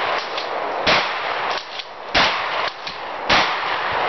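Shotgun firing three shots about a second apart, each a sharp blast, with fainter sharp hits between the shots.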